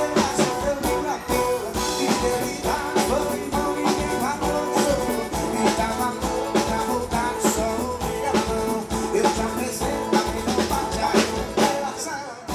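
Live sertanejo band music: a male singer over drum kit and guitars, with a steady beat.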